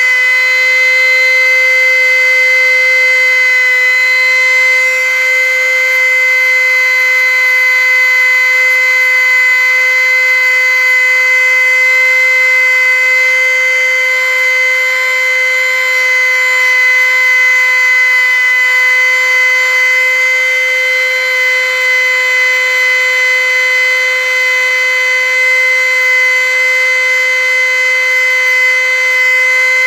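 Handheld electric rotary tool running steadily at high speed, its motor giving a high, constant-pitched whine.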